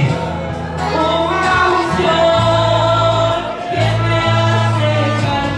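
Slow gospel worship song: voices singing together in a long, held melody over instrumental accompaniment with sustained bass notes that change every second or two.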